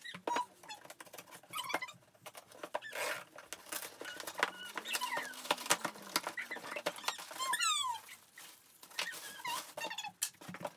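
A cardboard box being handled while plastic packaging is stuffed into it and the flaps are folded: rustling and crinkling with knocks, and short high squeaks.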